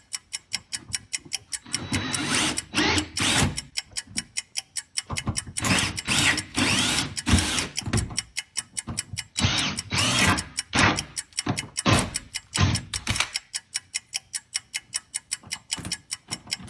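A steady, fast ticking, about five ticks a second, with louder irregular noisy hits through the middle stretch.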